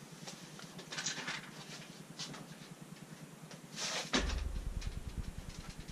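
A few short scrapes and clicks of hands working parts on a bicycle held in a repair stand, with a low steady hum setting in about four seconds in.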